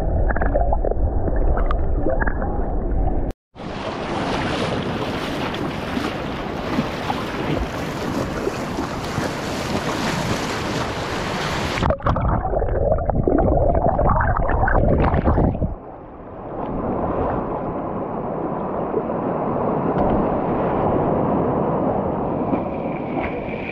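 Ocean surf heard through an action camera held in the waves: muffled underwater churning and gurgling alternating with a louder, hissing wash of breaking waves. The sound cuts out abruptly about three seconds in and changes character again a few times.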